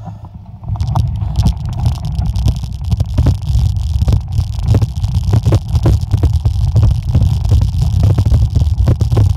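Mountain bike rolling over a gravel forest road: heavy wind rumble on the microphone with many irregular clicks and rattles from the tyres on loose stones and the bike shaking. It gets louder about a second in.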